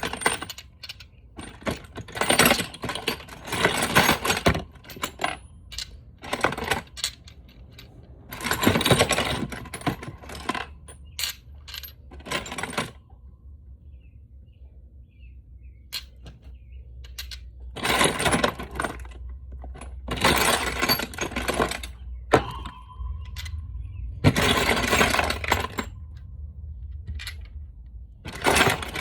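Metal sockets clattering and clinking together as they are rummaged through and pulled out of a tool box, in bursts of a second or two with pauses between. About 22 seconds in, one piece rings briefly.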